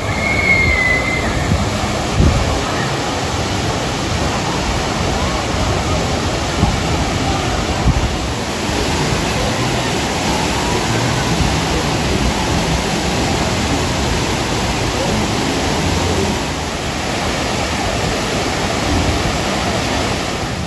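Wave pool waves rushing in and washing over the shallow pool edge: a steady rush of water with a few brief louder splashes.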